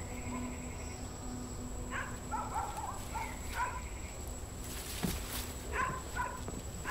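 A dog barking in short, high yaps, several times and often in quick pairs. A brief rustle comes about five seconds in.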